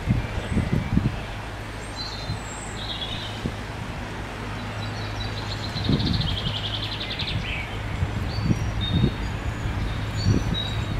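Small songbirds giving short high chirps, with a rapid high trill about six seconds in, over a steady low rumble with a few low thumps.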